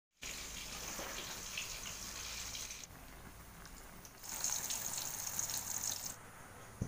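Water bubbling at a boil in a pot on a gas stove, then, after a quieter stretch, hot oil sizzling around slices of tempeh frying in a wok. A single thump near the end.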